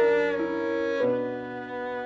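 Solo cello played with the bow: held notes with several pitches sounding together, changing about half a second and a second in, growing quieter toward the end.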